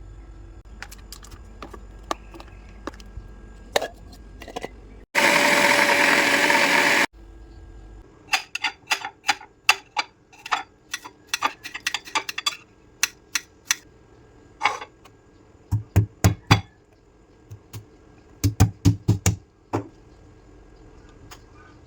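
Kitchen preparation sounds: a run of sharp knocks and clicks of utensils, some with a dull thud underneath. About five seconds in, a loud two-second burst of steady whirring noise starts and stops abruptly.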